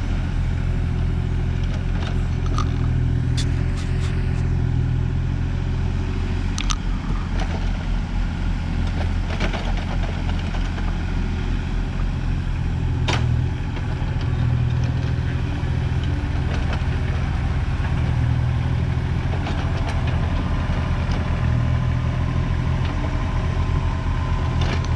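Engine of a tractor-excavator running steadily, with a few sharp clicks or knocks over it.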